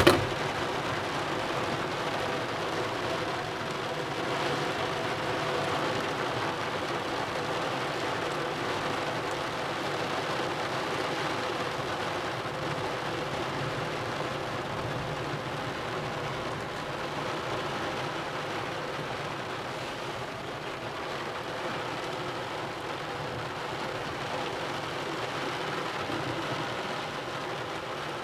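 Steady heavy rain pattering on a roof and skylight during a thunderstorm, heard through a partly closed roof window. A brief sharp click at the very start.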